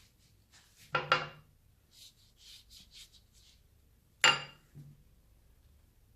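Kitchen dishes or utensils knocking together twice, about one second in and again about four seconds in, the second a sharp clink that rings briefly, with faint soft handling sounds between.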